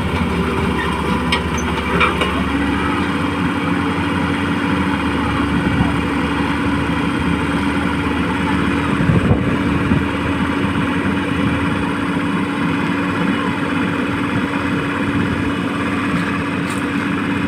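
Radio-controlled model excavator running with a steady mechanical hum; a steady higher tone joins about two and a half seconds in and holds as the machine works.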